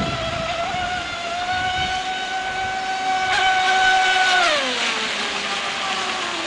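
Arowana RC speedboat's brushless electric motor running at full throttle: a high, steady whine, which slides down in pitch about four and a half seconds in as the boat slows.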